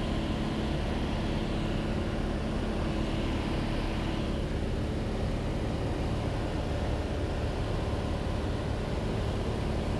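Cessna 182's piston engine and propeller droning steadily in flight, heard from inside the cabin, with a few fixed low tones over an even roar.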